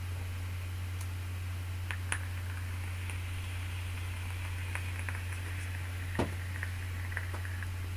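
Steady low electrical hum with a few faint clicks and soft crackles, as a 1.3 ohm single-coil dripper on a mechanical mod is fired for a draw of vapour.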